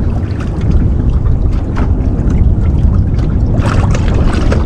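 Steady wind rumble on the microphone aboard a small boat, with a few short water slaps against the hull near the end.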